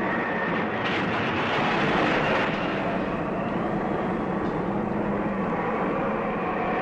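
Steady rushing roar of a tornado sound effect, like a passing freight train, with faint held tones under it and a brief swell about two seconds in.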